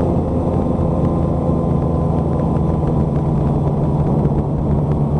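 A Honda motorcycle's air-cooled inline-four engine running at a steady pitch while riding, mixed with road and wind noise.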